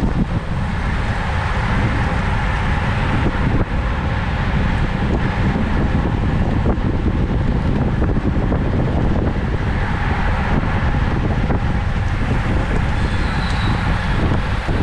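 Steady wind noise rushing over the microphone of a camera on a moving bicycle, with no breaks or changes.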